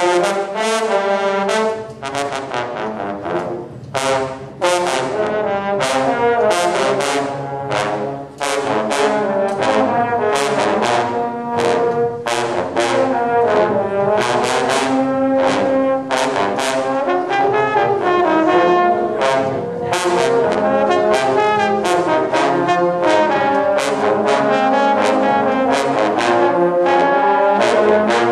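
A section of marching baritone horns playing a fanfare together, with many sharply tongued note attacks and a few brief breaks between phrases in the first several seconds.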